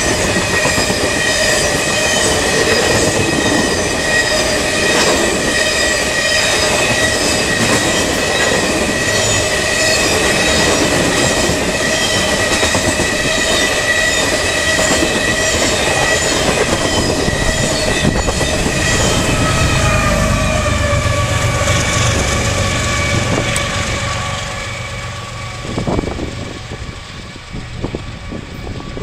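Empty coal hopper cars rolling past at speed, wheels clacking on the rail joints with a steady high wheel squeal. About three-quarters of the way through, the squeal slides lower and the noise fades as the end of the train goes by.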